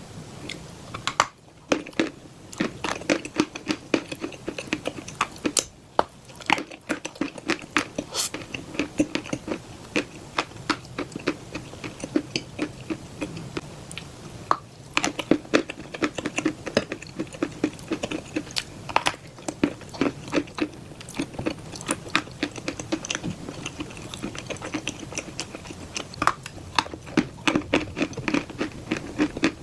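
Close-miked chewing of white chalk and black clay paste: a dense run of sharp crunches and clicks, several a second, with a few brief pauses.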